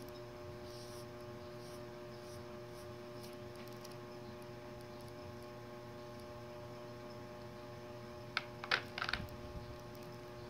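Steady electrical hum made of several fixed tones, with a quick cluster of small clicks and knocks about eight and a half seconds in.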